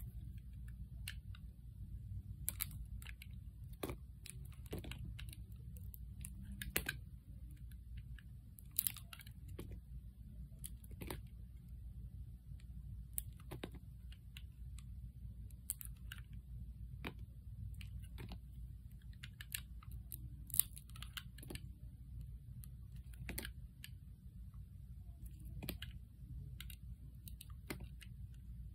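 A snap-off utility knife blade slicing thin pieces off a bar of painted soap, each cut giving a short crisp crackle. The crackles come irregularly, about one a second, over a low steady hum.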